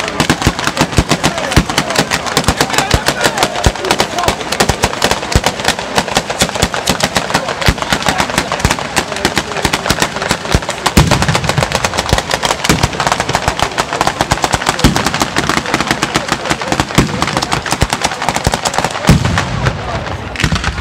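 Batteria bolognese, a ground-level chain of firecrackers, firing as a dense, rapid string of cracking bangs. Heavier bangs come about 11 seconds in and again near 19 seconds.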